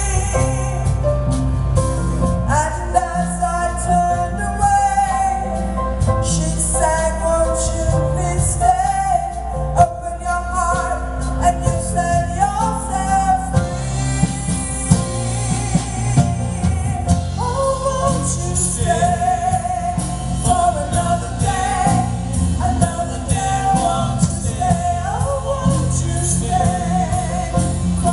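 Live band playing a slow pop song while a woman's voice sings a melody over it without clear words.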